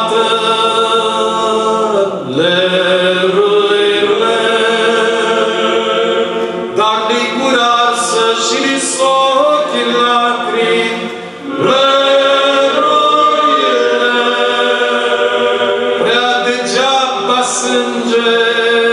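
Male choir of Orthodox priests singing a Romanian Christmas carol (colind) a cappella, in long held phrases, with a brief break for breath about eleven seconds in.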